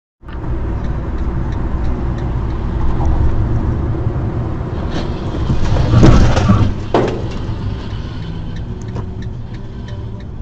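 Road and engine rumble of a moving car heard from inside, with a burst of loud crashing impacts about five to seven seconds in as a vehicle ahead collides and loses a wheel.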